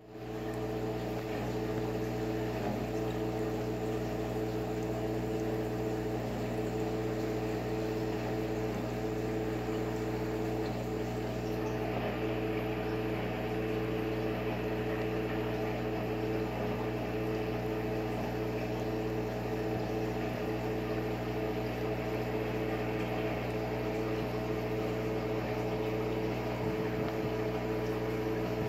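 Aquarium air pump running a sponge filter: a steady electric hum with a haze of bubbling water over it.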